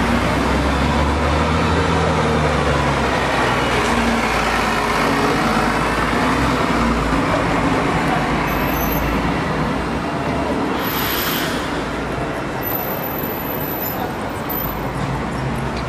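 Steady road traffic noise, with the low hum of a large vehicle's engine in the first few seconds and a short hiss about two-thirds of the way through.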